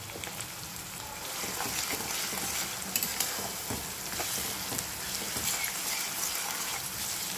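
Chopped onions sizzling in hot oil in a stainless steel kadai while a plastic spatula stirs them, with scattered scraping taps against the pan. The sizzle grows a little louder about a second and a half in.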